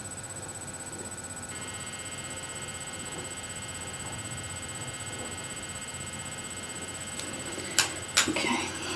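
Steady room hum and hiss with a faint high electronic whine, then two sharp clicks in quick succession near the end as makeup brushes are handled and swapped, followed by light rustling.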